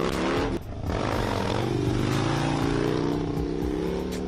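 Harley-Davidson Street Bob's V-twin engine revving through a Fab 28 two-into-one stainless exhaust. The engine note drops off briefly about half a second in, then climbs back up and eases off again.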